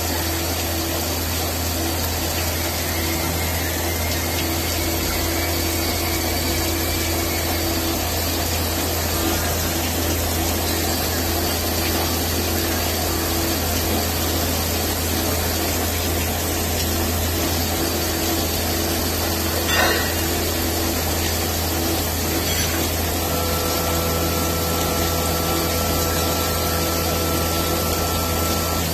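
DAS Swiss-type CNC lathe machining a metal part under flood coolant: a steady hiss of coolant spraying over the machine's hum. A short click comes about two-thirds of the way through, and a faint steady whine comes in near the end.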